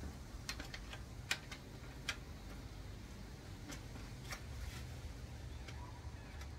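Scattered light clicks and taps at an irregular pace over a low steady hum, typical of small metal parts and tools being handled during a manual gearbox teardown. The sharpest click comes about a second and a half in.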